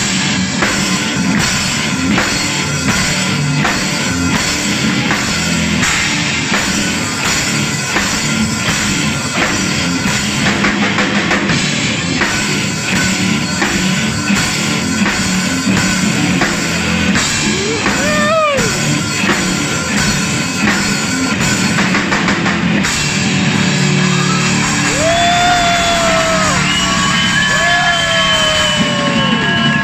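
Heavy metal band playing live and loud: electric guitars, bass guitar and drum kit in a club room. A note glides up and down about halfway through, and over the last few seconds held notes bend in pitch.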